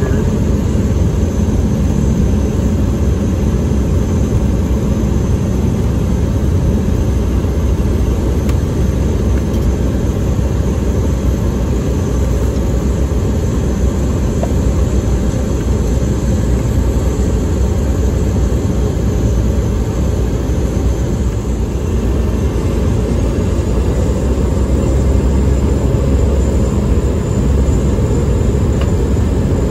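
Cessna 208B Caravan's single turboprop engine and propeller running at taxi power, heard from inside the cabin: a steady low drone with a thin high whine that steps up slightly in pitch about two-thirds of the way through.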